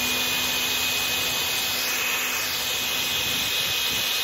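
Small electric air blower running steadily, a high motor whine over rushing air, blowing air at soap-coated drysuit shell fabric to pressure-test a pinhole for leaks.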